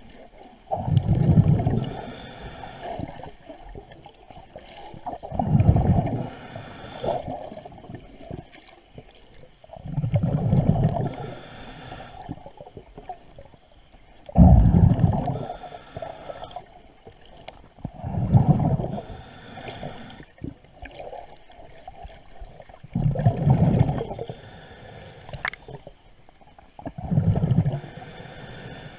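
A diver's exhaled breath bubbling out of an underwater breathing regulator, heard from underwater: a deep, gurgling burst about every four to five seconds, seven breaths in all.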